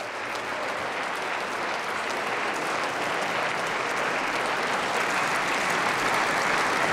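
Applause from members of parliament seated in a large plenary chamber: dense, steady clapping that grows slowly louder.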